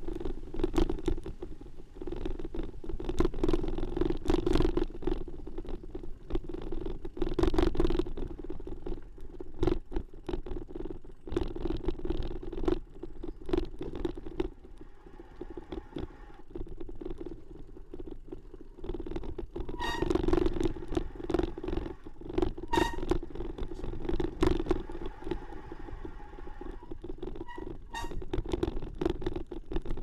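Bicycle jolting over a rough dirt path, heard from a camera on the bike: continual irregular rattling and knocking over a low rumble, with a few short high squeaks about twenty seconds in.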